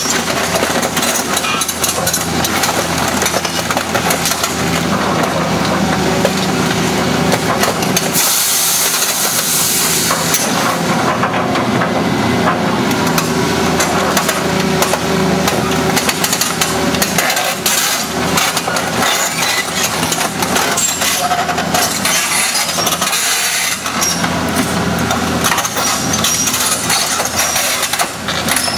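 Hitachi EX200LC hydraulic excavator's diesel engine running steadily under load while it crushes junk cars, with crunching sheet metal, cracks and clinking broken glass. A burst of hiss comes about eight seconds in.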